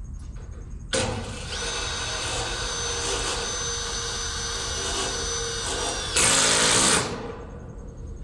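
Power drill driving screws into wood: it starts about a second in, runs steadily with a whine, gets louder for a moment near the end and stops.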